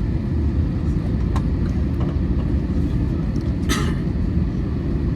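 Steady low rumble inside the cabin of an Airbus A321neo airliner, with a brief hiss about three and a half seconds in.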